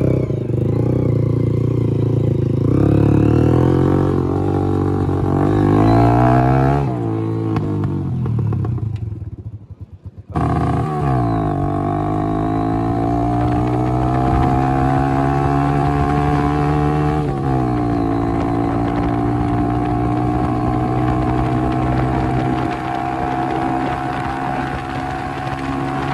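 Hero Splendor motorcycle's single-cylinder four-stroke engine running loud through a modified, opened-up exhaust silencer. It is blipped up and down in the first seconds and cuts out briefly about ten seconds in. It then climbs steadily in revs, drops sharply, and holds a fairly steady high idle.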